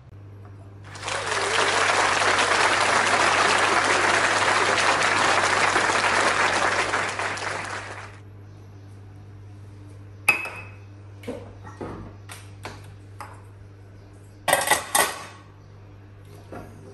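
A loud, steady hiss lasting about seven seconds that stops suddenly. After it come stainless-steel saucepans clinking and knocking as they are handled and stacked, with a louder burst of clattering a little before the end.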